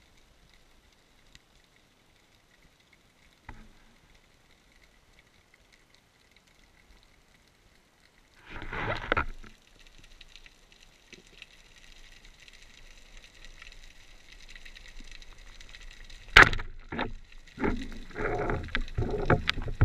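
Underwater recording near a speargun: mostly hushed water with a faint high steady hum. A brief rush of water moves past about eight seconds in. A single sharp click comes about two-thirds of the way through, followed by swishing, rushing water that grows louder near the end.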